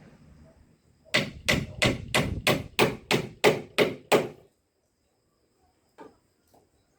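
Hammer striking wood in a quick, even series of about ten blows, roughly three a second, followed a couple of seconds later by one fainter knock.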